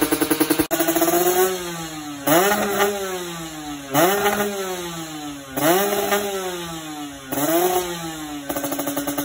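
Kawasaki Ninja SS's two-stroke single-cylinder engine revved by hand from idle: five quick throttle blips, each climbing sharply and falling slowly back, then settling to a steady idle near the end.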